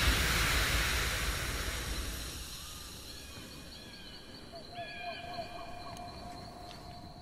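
The tail of a rifle shot dying away over about two seconds, followed by faint bird calls over a thin, steady high tone.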